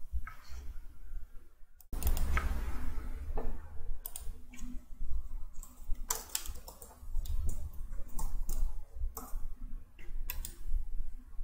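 Scattered clicks and taps from a computer mouse and keyboard over a low rumble.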